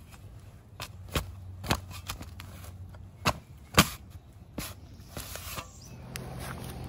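Trench shovel being driven into grassy, sandy soil: a handful of sharp crunching chops as the blade cuts in, mostly in pairs about half a second apart.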